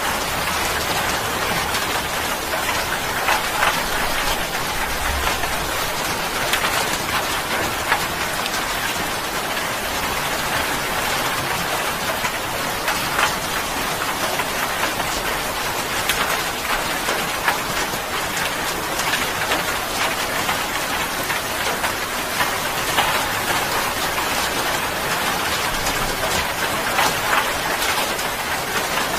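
Rain falling steadily: an even hiss with scattered sharper drop splashes.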